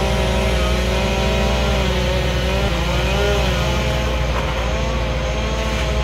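Bucket truck's engine running steadily, a deep rumble with a whine on top whose pitch drifts slowly up and down.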